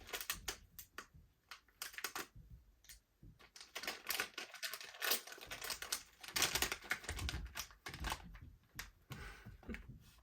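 Plastic blind-bag packaging crinkling and clicking irregularly as it is cut open and unwrapped by hand.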